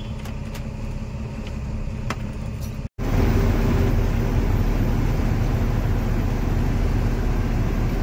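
Goods truck's engine running with a few light clicks, then, after an abrupt cut about three seconds in, the louder steady drone of the truck driving, engine and road noise together.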